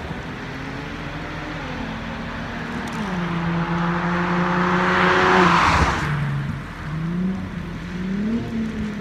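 2008 Infiniti G37 Coupe's 3.7-litre V6 accelerating past through a Manzo axle-back exhaust with Z1 high-flow cats. The engine note climbs and steps down in pitch as it changes gear on the approach, is loudest as the car passes about five and a half seconds in, drops in pitch, then climbs again as it pulls away.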